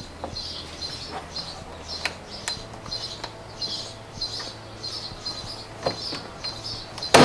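BMW E90 plastic door trim panel being worked onto the door, with scattered light clicks and knocks and one sharp snap near the end as a clip seats. A bird chirps over and over in the background.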